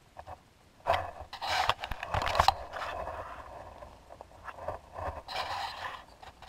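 Pea gravel being scraped and crunched, in two spells: one starting about a second in and lasting about a second and a half, and a shorter one about five seconds in.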